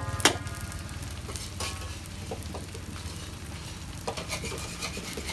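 Bánh xèo batter frying and sizzling in lard in thin aluminium pans. A metal utensil knocks against a pan once sharply just after the start, leaving it ringing, then taps and scrapes lightly a few more times.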